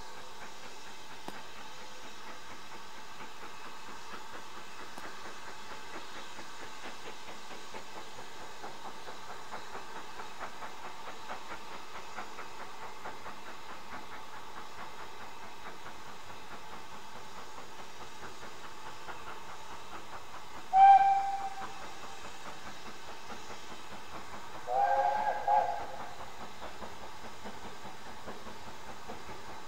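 Steam locomotives working, a steady rhythmic exhaust beat with hiss of steam. About two-thirds of the way through comes a short, loud steam whistle blast, and a few seconds later a second, two-note whistle of about a second.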